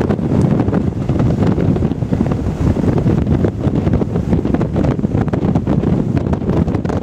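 Strong wind buffeting the microphone on a sailing ship's deck: a loud, unsteady low rumble with no let-up.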